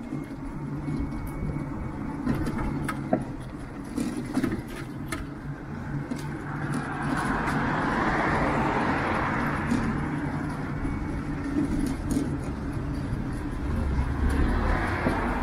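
Road traffic passing close by: one car swells and fades about halfway through, and another comes up near the end, over a steady low hum and a few light clicks and rattles.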